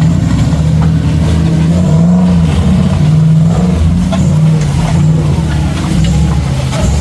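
Off-road 4x4 engine running loud, its pitch rising and dipping a few times as it is revved.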